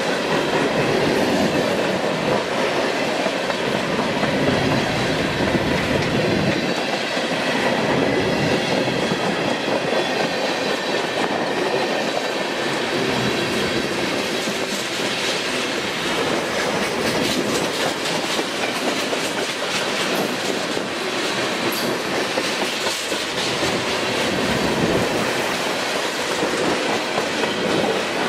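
Freight train cars rolling past at close range: a steady rumble of steel wheels on rail with clickety-clack over the rail joints and a faint high wheel squeal now and then.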